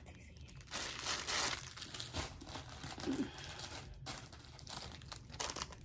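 Packaging crinkling and rustling as it is handled and opened, loudest about a second in.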